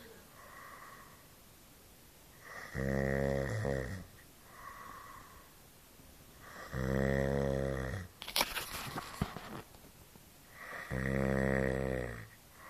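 Loud, rhythmic snoring: three long, low, rattling snores on the in-breath, about four seconds apart, with quieter, faintly whistling out-breaths between them. A short flurry of sharp clicks follows the third snore.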